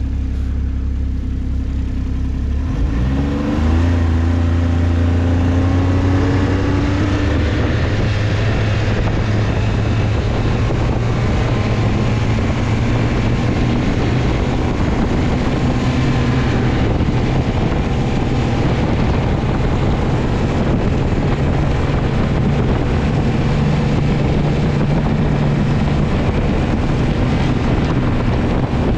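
Snowmobile engine running low, then revving up about three seconds in as it pulls away, and running steadily at speed across the snow under a steady rushing noise.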